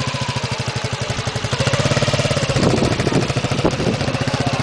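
Motorcycle engine idling with a rapid, even putter.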